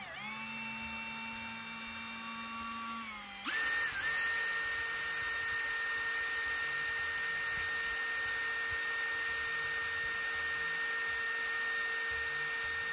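Power drill running, spinning the tower fan's motor shaft to work freshly packed grease into its bearing. A steady whine jumps up in speed and loudness about three and a half seconds in, then holds steady.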